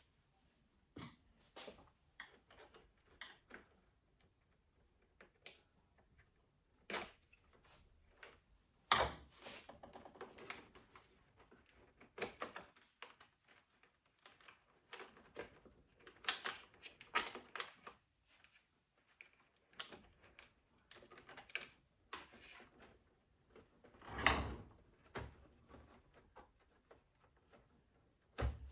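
Irregular clicks, taps and short scrapes of coffee-machine parts and tools being handled during disassembly, with two louder knocks about nine seconds in and again near the end.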